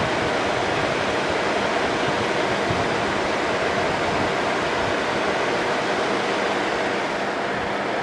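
1988 Fedders Cool Tote 5000 BTU window air conditioner running and cooling: a steady rush of air from its fan with a faint steady hum, the compressor itself so quiet it can barely be heard.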